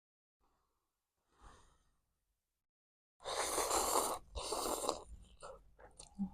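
A person breathing hard through the mouth close to the microphone: two long, loud rushes of breath about three seconds in, then shorter puffs and a few small mouth clicks.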